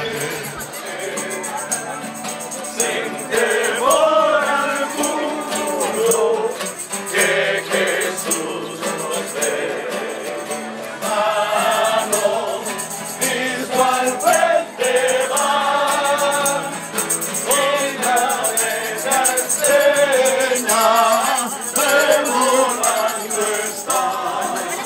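A group of voices singing a Christian worship song, with a jingling tambourine-like percussion keeping time.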